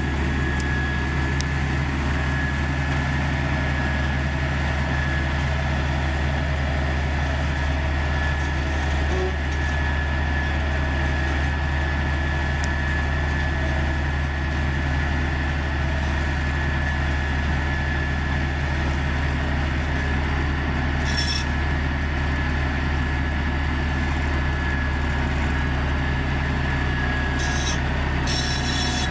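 Komatsu GD555 motor grader's diesel engine running steadily: a deep, even drone with a thin steady whine above it. A few brief clatters come about two-thirds of the way through and again near the end.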